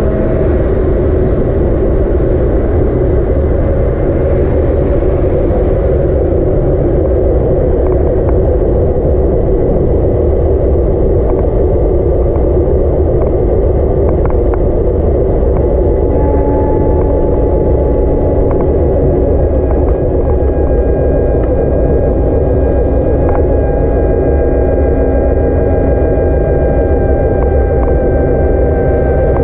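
Steady wind rumble and road noise on an action camera riding along on an e-bike, with a thin whine in several steady tones coming in about halfway through.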